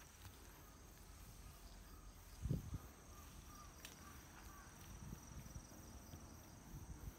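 Faint, steady, high-pitched insect trilling, with a low rumble beneath it and a brief low thump about two and a half seconds in.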